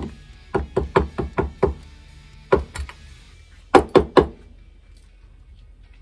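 Sharp metal knocks against a bench vise as a Ford Model A distributor housing is tapped to shake loose dirt and an old bug nest. One knock, then a quick run of about six, then two, then three, over faint background music.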